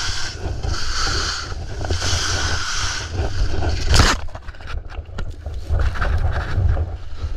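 Ski edges scraping on firm groomed snow through turns, the hiss swelling about once a second, over wind rumble on the camera microphone. About four seconds in there is a loud thump as the skier crashes into deep snow beside the trees, followed by crunching and rustling of snow.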